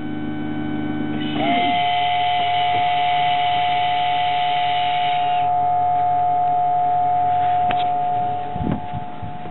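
Wakeboard boat ballast system switching over to drain. About a second in, the low hum of the ballast pump gives way to a steady higher whine. At the same moment a higher whir starts and lasts about four seconds, the electric ball valve's motor turning the valve. Near the end the whine drops and there is a low thump.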